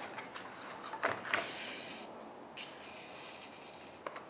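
Paper and yarn being handled in hand sewing: the sheet rustles and taps lightly, and yarn is drawn through a stitching hole in the paper with a soft hissing rasp lasting about a second, starting about a second in.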